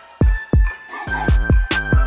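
Hip-hop instrumental beat playing over the end credits: deep bass kicks that slide down in pitch about twice a second, sharp snare or hi-hat hits, and a held synth note.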